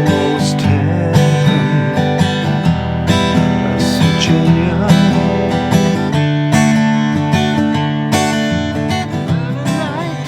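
Acoustic guitar strummed in a steady accompaniment rhythm: a bass string struck alone on beat one, then an accented full strum across the strings on beat two, with lighter strums in between.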